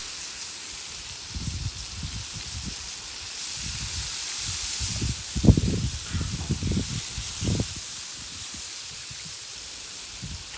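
Hot chicken broth in a wide paella pan over a wood fire, hissing and sizzling steadily as it meets the hot pan and ingredients, with a few low thumps now and then, the loudest about halfway through.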